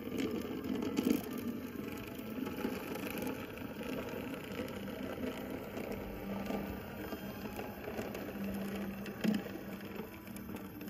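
A 2mm scale brass model of a Raven 4-6-2 locomotive running along the track. Its small drive mechanism whirs and its wheels rattle on the rails, with a brief louder clatter about nine seconds in.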